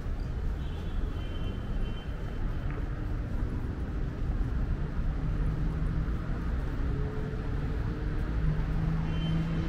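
City street traffic: a steady low rumble of vehicles, with one engine's hum growing louder in the second half.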